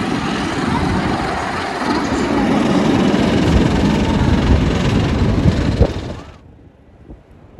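Roller coaster train running along its track: a loud rushing rumble that swells about two seconds in and cuts off abruptly about six seconds in.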